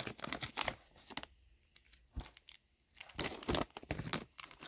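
A hockey card pack's wrapper being torn open and crinkled by hand, in two spells of rustling with a short pause and a single click between them.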